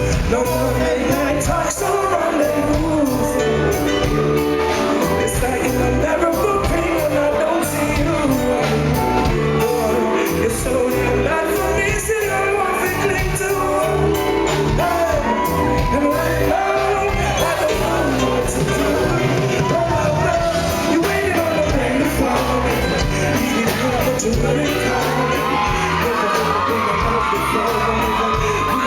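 Live reggae band playing with a lead vocalist singing over a steady bass beat, heard loud through a handheld recorder in a concert hall, with occasional crowd shouts.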